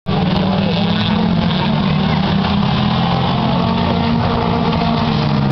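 Several race-car engines running together in a steady drone as a pack of small cars laps an oval short track, with spectators chattering.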